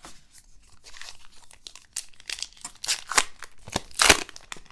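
Wrapper of a 2021 Bowman Heritage baseball card pack being torn open and crinkled by hand: a run of irregular crackling rustles, loudest about four seconds in.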